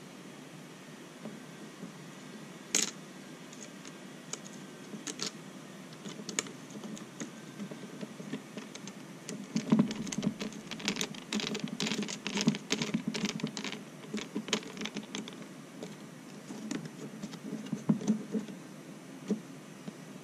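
Small, sharp plastic clicks and taps from handling the parts of an open RC transmitter's stick gimbal and turning a small screwdriver in it, scattered at first, then a dense run of clicks in the middle.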